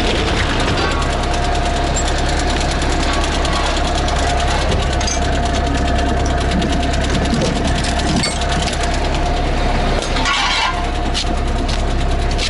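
A fire engine's engine runs steadily with a steady whine over a low hum; the whine stops about ten seconds in, followed by a brief rattle. Metal equipment clinks as hose gear is handled at the truck's compartments.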